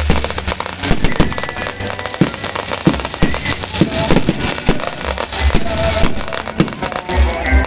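A rapid, irregular run of firecracker pops crackling over music.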